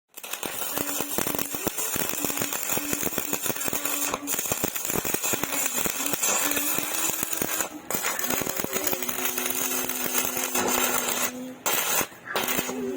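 Stick arc welding: the electrode's arc crackling and sizzling steadily, broken off briefly a few times, with a hum underneath.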